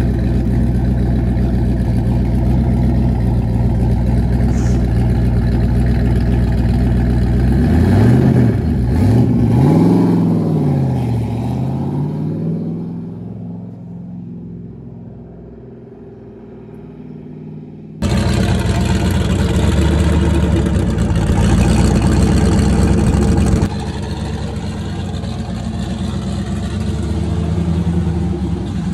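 Turbocharged Ford Fox-body Mustang engine, running on a freshly installed, untuned Holley EFI, idling steadily. It is revved up twice about eight to eleven seconds in, then fades as the car pulls away. After a sudden cut about eighteen seconds in, the engine is heard running again close by, a little quieter from about the twenty-fourth second.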